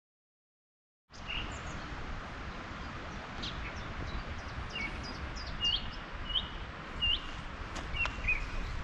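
Small birds chirping, a string of short repeated calls, over a low rumbling background noise. The sound starts abruptly about a second in, out of complete silence.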